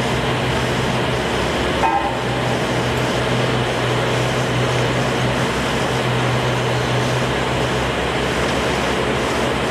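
Steady machine noise with a constant low hum, and one brief knock about two seconds in.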